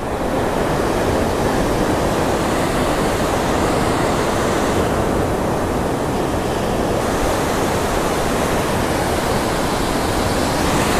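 Rough ocean surf: an even, steady rush of breaking waves and foaming wash.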